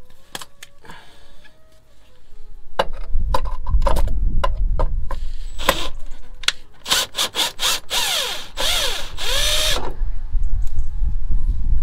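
Cordless drill-driver unscrewing a fastener on a van's chassis: a few clicks and short trigger bursts, then about two seconds of the motor running with its pitch dipping and rising again.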